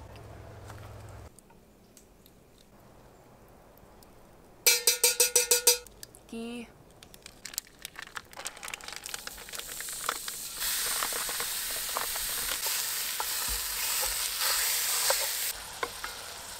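Ground beef sizzling as it cooks, with clicks and scrapes from a utensil stirring it. The sizzle builds and is loudest past the middle, then drops off sharply near the end. A short, rapid rattling burst comes about five seconds in.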